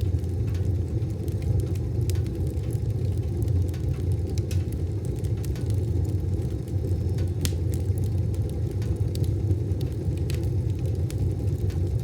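Wood fire burning in a wood stove: a steady low rumble with scattered sharp crackles and pops.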